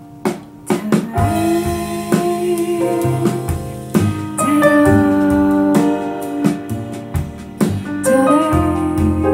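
A vinyl record played on a VPI turntable through an LKV Research phono stage and loudspeakers: instrumental music led by piano, with sharply struck notes. It comes in about a quarter second in, after a brief quiet moment.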